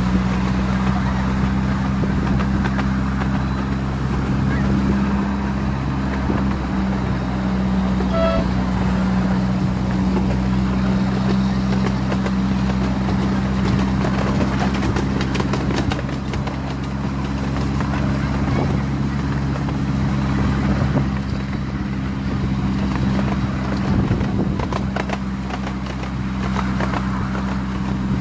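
Miniature railway train running along the track with a steady motor hum and running noise. A brief high tone sounds about eight seconds in, and a run of clicks comes about halfway through.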